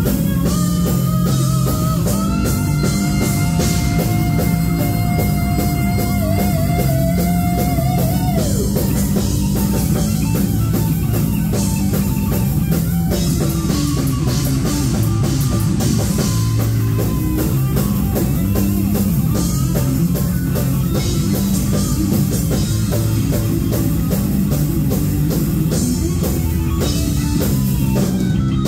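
Heavy metal band playing live, instrumental: distorted electric guitar, bass guitar and drum kit. A long held guitar note with vibrato runs for the first eight seconds or so and slides down, then the band goes into fast riffing.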